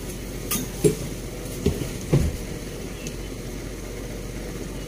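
A few light knocks and clinks as small plastic-bagged fishing lures are picked up and set down on a tabletop: about four short taps in the first couple of seconds, then only a steady low background.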